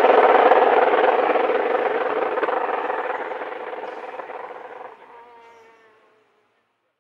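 Rally car engine note fading away down the stage, a buzzing pitched drone that grows steadily fainter and dies out about six seconds in.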